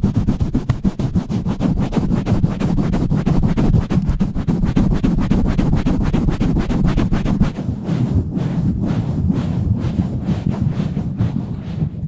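Hands rubbing, scratching and pumping fast and roughly right on a microphone in a steady stream of rapid strokes.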